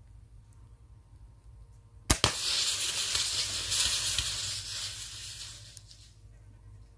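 A single sharp crack as the air rifle shot punctures an aerosol deodorant can about two seconds in, followed by the pressurized can hissing out its spray for about four seconds, fading away near the end.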